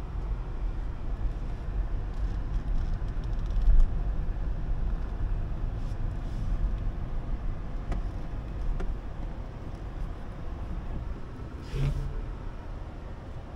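Inside the cabin of a 2023 BMW X1 rolling at low speed: a steady low rumble of tyres and road with no clear engine note, a few faint clicks, and a short click with a brief low tone about twelve seconds in.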